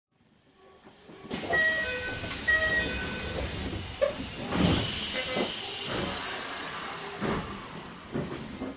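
Inside a Keisei 3050-series commuter train car stopped at a station: a two-note door chime sounds twice, then the doors close with a knock and a burst of air hiss. A high whine glides slowly down in pitch under the chime.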